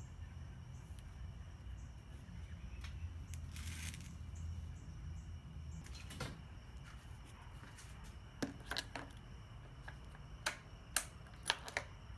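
Quiet handling rustle with a low rumble, then a quick series of about seven sharp clicks and knocks in the second half, over faint steady cricket chirping.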